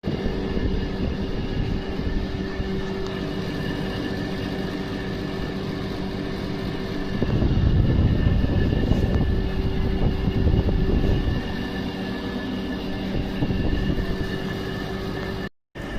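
LG window air conditioner running with a steady hum, its vibration growing louder and rougher for several seconds about halfway through: the vibration noise problem in the unit.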